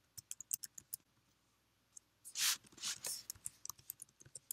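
Typing on a computer keyboard: a quick run of key clicks, then a pause, then scattered keystrokes. There is a short hiss about two and a half seconds in.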